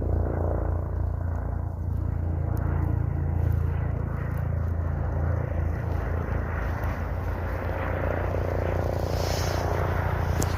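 Airbus helicopter running, a steady low rumble with a fast, even rotor beat and a brief rise of hiss near the end.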